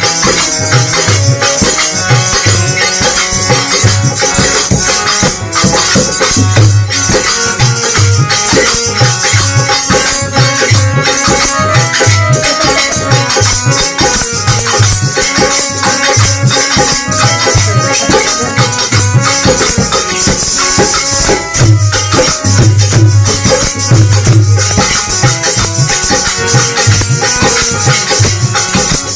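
Instrumental Hindu devotional bhajan music: a steady, repeating low drum beat under a continuous jingling, shaking percussion and a held melodic line.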